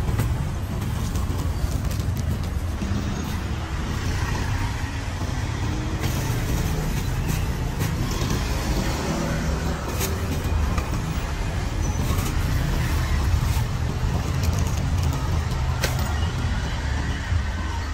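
Steady rumble of street traffic, cars and motorbikes going by, with a few short crackles of plastic carrier bags being handled close by.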